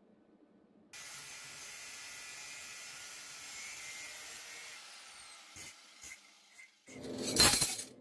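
Angle grinder cutting through a steel cutlery piece: a steady hissing grind that starts suddenly about a second in and fades out after about four seconds. A few light knocks follow, then a short, loud burst near the end.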